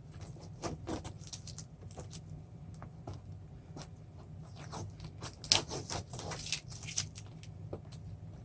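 Masking tape being peeled off a plexiglass sheet: irregular small crackles and short tearing rasps, loudest about five and a half seconds in, over a low steady hum.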